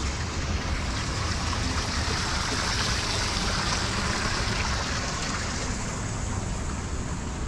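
Rushing hiss of running water from an ornamental pond, swelling in the middle and easing toward the end, over the low rumble of wind on the microphone.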